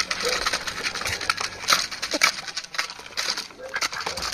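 Ducks, chickens and turkeys pecking and dabbling feed from the bed of a small RC truck: quick, irregular clicking and rattling of bills on grain and the truck, with a few short calls.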